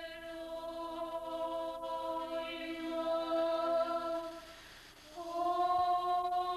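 Voices singing Orthodox liturgical chant in long, held notes; the singing breaks off briefly a little past the middle, then takes up another long held note.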